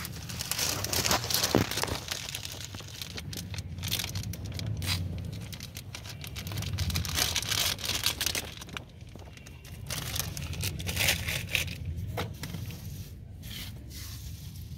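A small plastic bag crinkling in irregular bursts as coriander seeds are shaken out of it, the seeds pattering onto a concrete floor.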